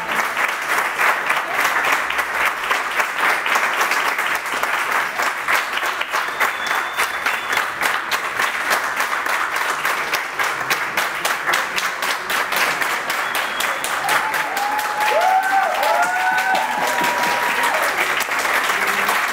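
Audience applauding, a dense, steady clapping of many hands that keeps going without a break.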